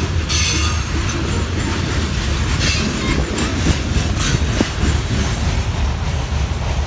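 CSX freight train of covered hopper cars rolling past over a grade crossing: a steady low rumble of the cars on the rails, with a few brief high-pitched flares.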